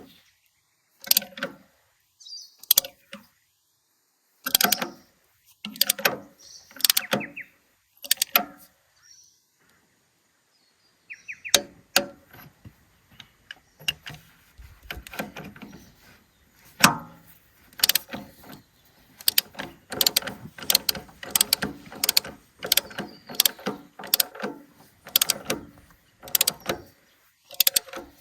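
Hand ratchet being worked in short bursts of rapid clicks, with pauses in the first half and near-constant ratcheting from about halfway on.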